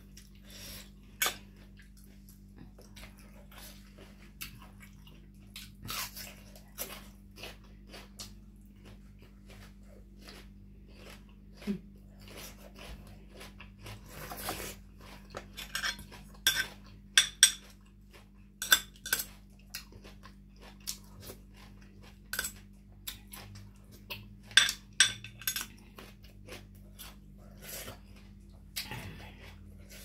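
A metal spoon clinking and scraping against a plate, in irregular sharp clinks that come thicker and louder in the second half.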